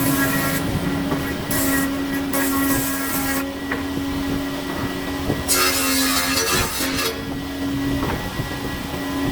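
A woodworking power tool's motor running with a steady hum, with several separate hissing cuts into wood, the longest about two and a half seconds in and another a little past the middle. The hum stops about eight seconds in.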